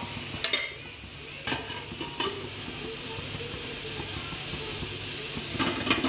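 Steady hiss of water at a full boil in a stainless-steel idli steamer. Sharp metal clinks sound about half a second in, twice more soon after, and in a cluster near the end, as the steel idli plate stand is lowered into the pot and handled.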